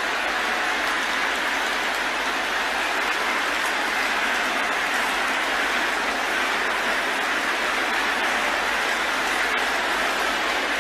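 A large congregation praying aloud all at once, many voices merging into a steady, even wash of sound with no single voice standing out.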